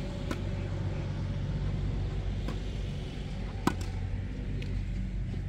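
Tennis rally: a few sharp pops of the ball off rackets and the court, the loudest a racket striking the ball close by about two-thirds of the way through, over a steady low rumble.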